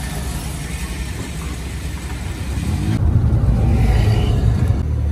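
Motor vehicles driving on a road: a steady rumble of engines and tyres. An engine revs up about two and a half seconds in, and the low rumble grows louder.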